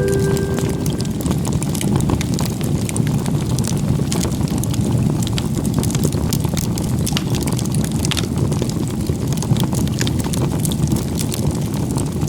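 Wood campfire burning with a steady low rush, crackling and popping many times a second.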